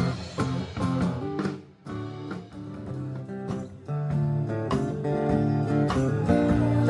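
Two acoustic guitars playing live, strummed and picked, with no singing. The music almost stops for a moment about two seconds in, goes on softly, then grows fuller and louder about four seconds in.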